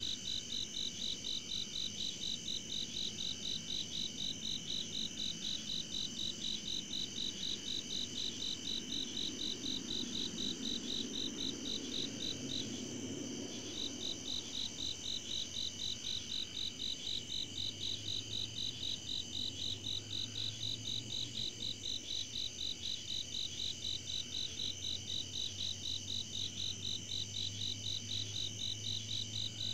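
Summer night chorus of crickets and other insects: one high chirp repeating steadily about two to three times a second over a continuous high trilling, the chirping pausing for about a second midway.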